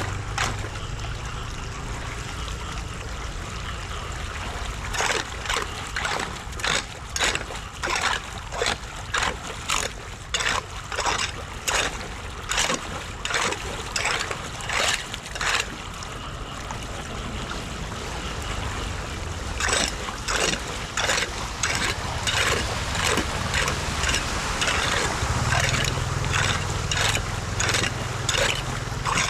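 Floodwater trickling and gurgling at a street drain, with repeated splashing strokes about once every 0.7 seconds in two long runs, one from about five seconds in and one from about twenty seconds in, as the clogged drain is worked clear. A low rumble joins near the end.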